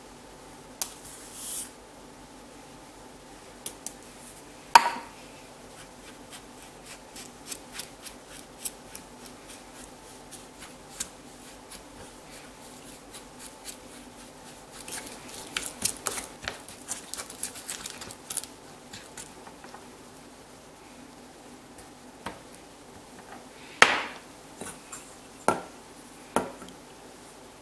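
Kitchen handling sounds: scattered light clicks and scraping of a spatula in a glass mixing bowl, busiest in the middle while ingredients are stirred, with two sharp knocks, about five seconds in and near the end, over a faint steady hum.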